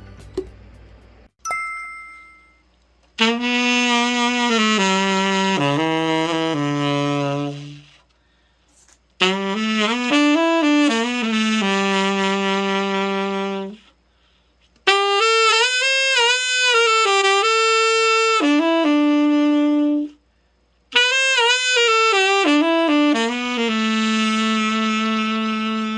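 Yanagisawa Prima T-50 tenor saxophone played in four short melodic phrases separated by brief pauses: a play test of the horn after a full overhaul.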